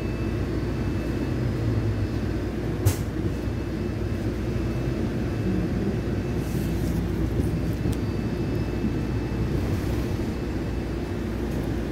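Steady low rumble of a moving vehicle heard from inside, with one sharp click about three seconds in.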